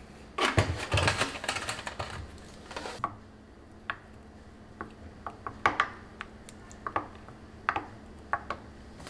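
Wooden spoon stirring milk with strawberry pieces in a tall drinking glass, knocking against the glass in a dozen or so irregular light clicks. It opens with about two seconds of clattering handling noise.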